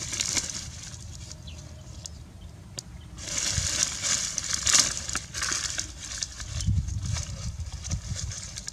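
Dry leaves and twigs rustling and crackling as they are crushed by hand and pushed into a small fire, with many small snaps, loudest from about three to six seconds in.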